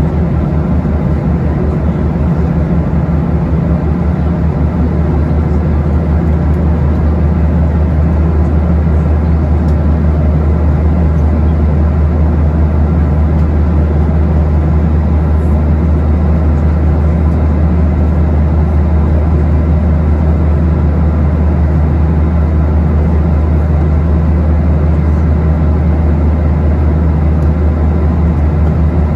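Steady cabin noise inside a Boeing 737-800 in flight: the constant drone of its CFM56 turbofan engines and the airflow over the fuselage, with a strong low hum under an even rushing noise.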